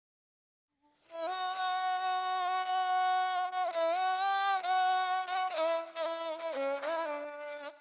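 Instrumental music: a single melody line of held notes with slides between them, starting about a second in.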